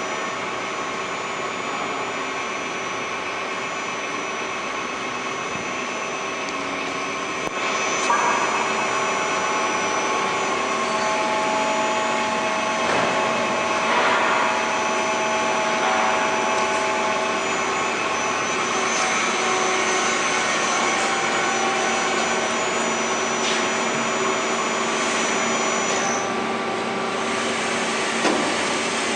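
Youji YV1600 CNC vertical boring mill running: a steady machine noise with several steady whining tones, getting louder about eight seconds in.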